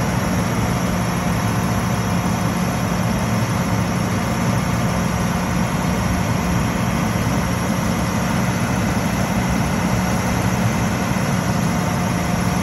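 2011 International medium-duty truck's diesel engine idling steadily while its chipper dump bed lowers, with a constant low hum that dips slightly in pitch right at the start.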